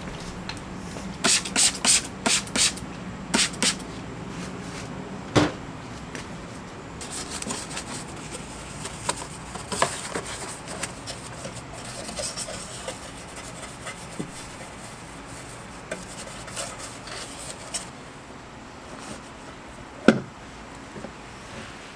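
Cloth wiping inside a car's fuel-filler recess, with soft irregular rubbing through the middle. It starts with a quick run of short, sharp sounds in the first few seconds, and near the end comes a single sharp snap as the fuel door is pushed shut.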